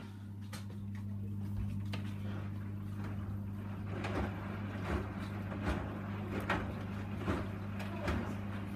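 Hoover Dynamic DYN 9164 D8PX washing machine mid-cycle on its Rapid 30 programme: a steady low hum starts abruptly, and from about halfway through the drum turns with regular soft thuds of the load tumbling, about one every 0.8 seconds.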